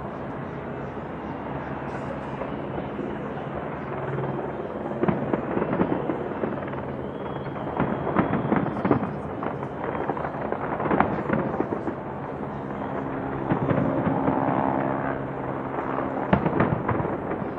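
Fireworks display going off: a steady rumble at first, then clusters of bangs and crackling starting about five seconds in and coming again every few seconds.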